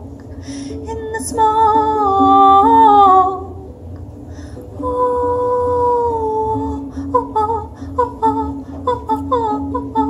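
A woman's wordless singing, humming long held notes and then a run of short falling notes, over steady ukulele strumming.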